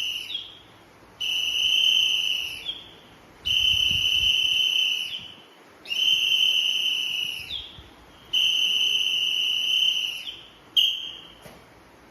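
A whistle blown in a regular series of long, even blasts, each about a second and a half long and a second apart, with a short blast near the end. They are drill whistle signals pacing a naval calisthenics exercise.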